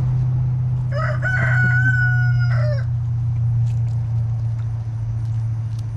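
A rooster crows once, about a second in, a single call lasting nearly two seconds. Under it runs a steady low hum, the loudest sound throughout.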